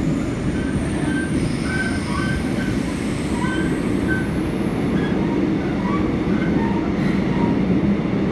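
Seoul Metro 4000-series electric subway train running on the line, heard from inside the car: a steady low rumble of wheels on rail with brief high squeaks scattered throughout.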